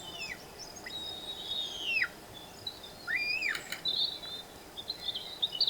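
Birds calling: drawn-out whistled notes that hold steady and then drop steeply in pitch at the end, one note that rises and falls in an arch about three seconds in, then a run of quick twittering chirps, over a steady outdoor hiss.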